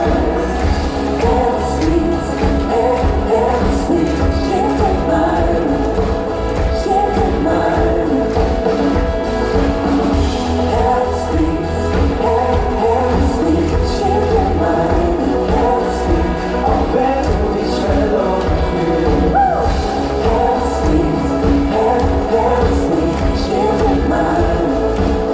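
Live pop music with singing over a heavy, steady bass line.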